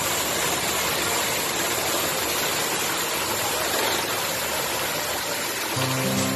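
Steady rushing hiss of falling water, even and unbroken; background music comes in near the end.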